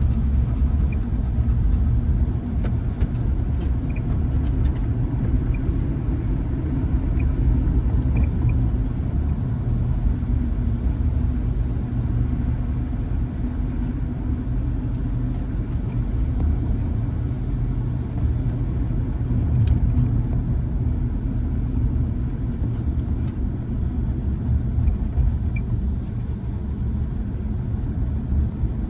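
A 2010 Honda Element being driven: a steady low rumble of road and engine noise.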